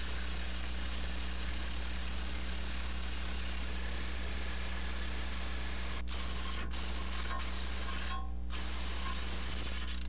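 Impact wrench running on the 16 mm brake caliper bracket bolts, which are coated with Loctite, as it drives them tight. It runs continuously, then stops briefly several times in the last few seconds, with one longer pause.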